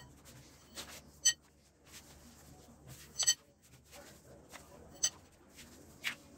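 Long thin rolling pin (oklava) working a sheet of dough on a marble slab: a soft rustle of rolling with about four sharp clacks that ring briefly, as the pin knocks against the stone.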